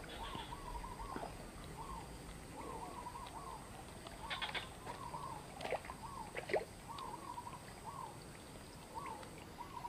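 A bird calling over and over in short, arched notes, with a few faint clicks around the middle.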